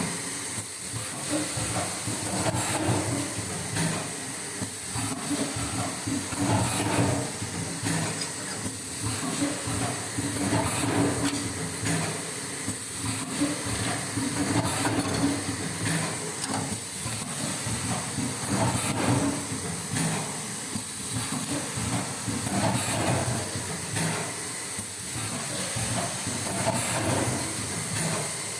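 Paper bowl forming machine running, a steady mechanical hiss that swells and eases every two to three seconds with its working cycle.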